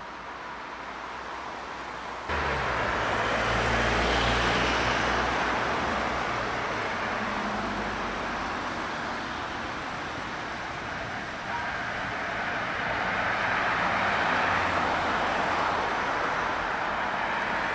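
City street traffic: motor vehicles passing close by with engine rumble over steady traffic noise. The sound jumps up suddenly about two seconds in and swells again in the second half.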